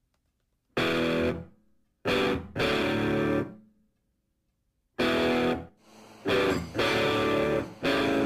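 Music: electric guitar chords played as short loud stabs separated by silences, then a nearly continuous run of chords from about five seconds in.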